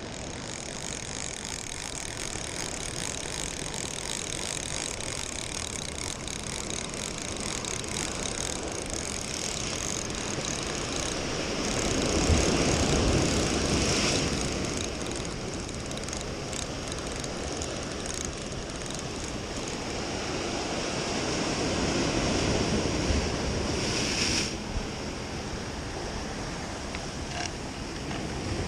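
Sea waves breaking and washing over the boulders of a rocky jetty, a steady rush that swells louder about twelve seconds in and again past the twenty-second mark, with wind buffeting the microphone.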